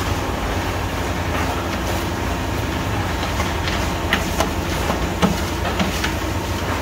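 Electric grinding mill running steadily as it grinds cacao into chocolate paste: a loud, even mechanical rumble with scattered clicks and clatter.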